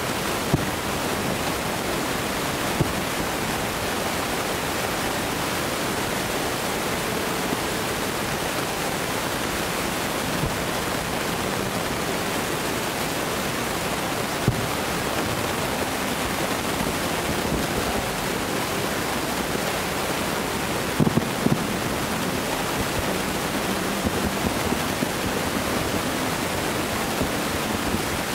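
Distant aerial fireworks shells bursting: a few faint, short thuds over a steady rushing noise, with three in quick succession about three quarters of the way through.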